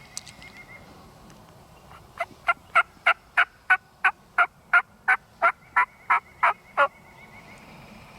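Wild turkey yelping: a long run of about fifteen loud, evenly spaced yelps, roughly three a second, starting about two seconds in and stopping about a second before the end.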